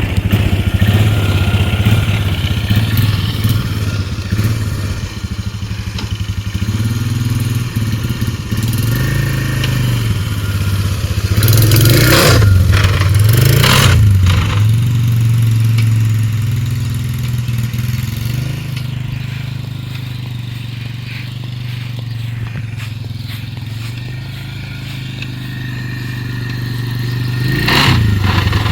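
2002 Polaris Trail Boss 325 ATV's single-cylinder engine running under way on a test ride, with a steady low drone and harsh noisy bursts about halfway through and again near the end. The transmission was called bad by the seller, and its silent drive chain is worn super loose.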